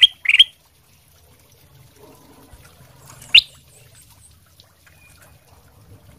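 Ruby-throated bulbul (kutilang emas) calling: two short, loud chirps right at the start and one sharp upward-sweeping call about three and a half seconds in, with quiet between.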